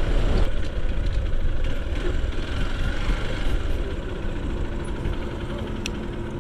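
Motorcycle engine running with wind rumbling on the microphone, growing quieter and settling into a steady idle hum about four seconds in.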